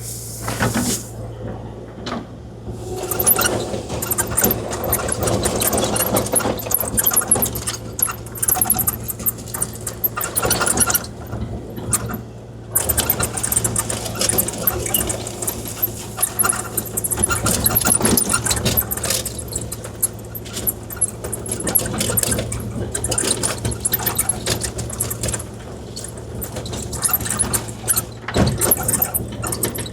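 Kubota KX040-4 mini excavator's diesel engine running steadily while it grades gravel, with frequent short clicks, rattles and scrapes from the machine working the stone. The noise eases off briefly near the start and again about twelve seconds in.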